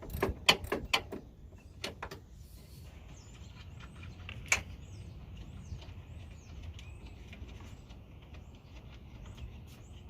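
A handful of sharp clicks and knocks from handling tools and parts at the front of the car, bunched in the first two seconds with one more about four and a half seconds in. Birds chirp in the background from about three seconds on.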